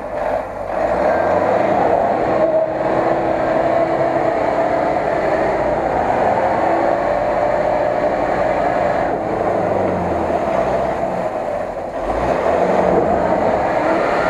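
Mitsubishi L200 pickup's engine running hard under load as the truck crawls through mud and water, the revs rising and falling, with a surge of revs near the end.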